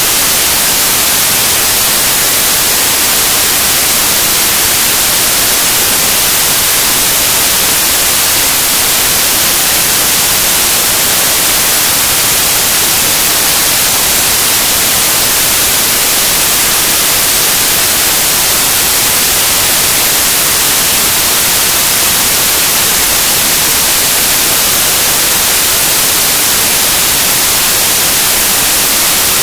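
Loud, steady static hiss like white noise, unchanging throughout, with no other sound heard through it.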